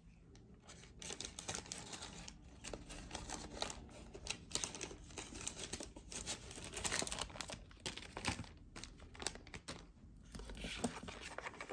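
Faint, irregular rustling and crinkling of wrapping being handled by hand, with many small clicks and taps.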